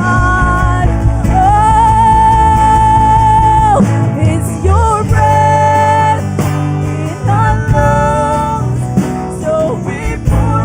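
Worship band music: a slow passage of long held melody notes over a steady low bass.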